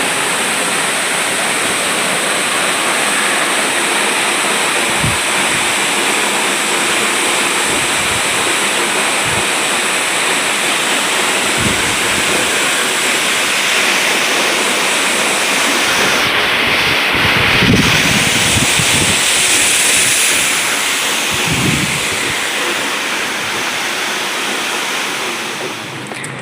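Waterfall: a steady, loud rush of falling water, with a few low bumps of wind or handling on the microphone.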